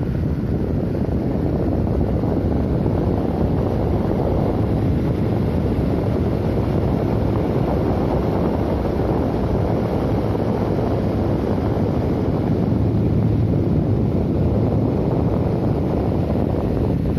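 Air Monster box fan running steadily, a constant rush of air with a faint low hum.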